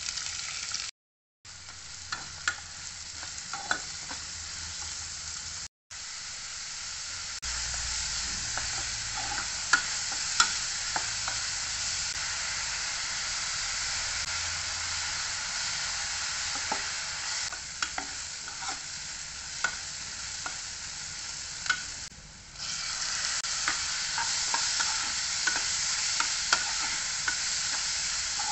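Chopped onions frying in hot oil in a non-stick kadai, sizzling steadily, with a spatula clicking and scraping against the pan as they are stirred. The sound cuts out briefly twice in the first six seconds.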